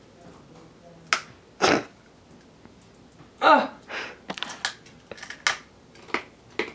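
Crisp crunches of a Tostitos tortilla chip being bitten and chewed: a loud crunch about a second and a half in, then a run of smaller, sharper crunches through the second half. A short vocal sound comes in the middle.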